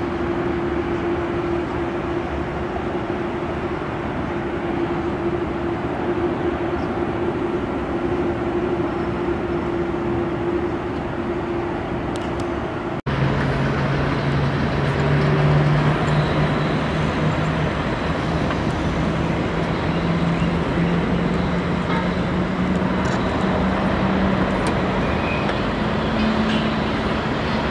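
Jet airliner engines during takeoff climb-out: a steady jet noise with a constant tone. After a sudden cut about halfway through, a Lufthansa Boeing 747's jet engines are heard on the runway, their low engine tone rising slowly in pitch.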